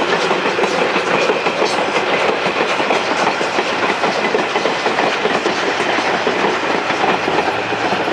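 Passenger carriages of a steam train rolling steadily past close by, with continuous wheel-on-rail noise.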